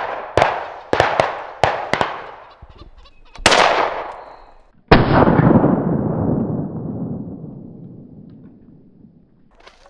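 Shotgun fire from several hunters at flying pheasants: a quick run of about six shots in the first two seconds, then two louder shots about a second and a half apart, the last with a long rumbling fade.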